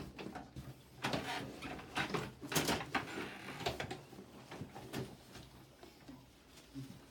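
A person shifting and rolling over on a padded chiropractic treatment table, with irregular rustling, shuffling and small knocks and creaks that die down after about five seconds.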